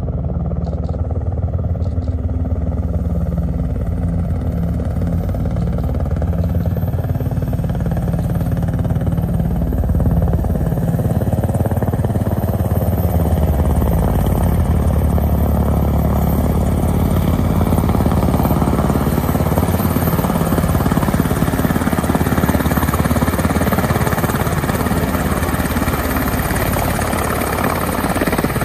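Two UH-60 Black Hawk helicopters' rotors beating as they fly in and descend to land. The sound is continuous and grows fuller and slightly louder as they come closer.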